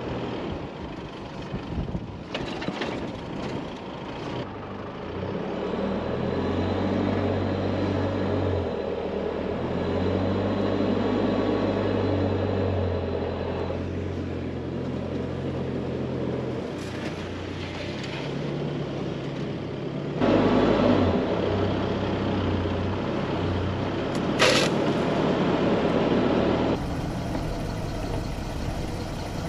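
4WD vehicle engine running at low speed along a soft sandy bush track, a steady low hum that shifts in pitch as the driver works the throttle. A few louder rushes of noise break in, the strongest about twenty seconds in and a short sharp one about twenty-four seconds in.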